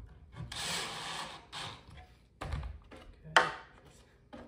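Cordless drill briefly driving a screw into the rack's bottom panel, a burst of about a second, followed by a dull thud and then a single sharp knock near the end.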